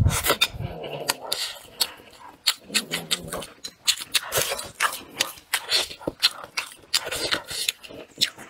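Close-up eating sounds of a person chewing braised crucian carp: wet chewing with a rapid run of lip smacks and mouth clicks.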